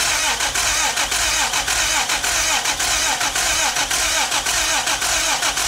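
1964 Triumph TR4's four-cylinder engine being cranked by a new high-torque gear reduction starter, spinning fast and evenly with a quick, regular rhythm of compression strokes.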